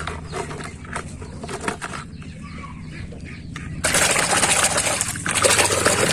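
Plastic toy vehicles clicking and knocking together in a tub. About four seconds in, a hand starts splashing hard in muddy water.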